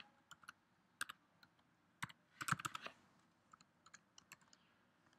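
Faint typing on a computer keyboard: scattered key clicks, with a quick run of keystrokes about two and a half seconds in.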